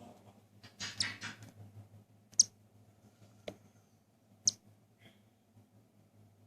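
Newly hatched cockatiel chick calling while being hand-fed: a short raspy burst about a second in, then three sharp high peeps about a second apart, over a faint steady hum. These are a chick's begging sounds at feeding.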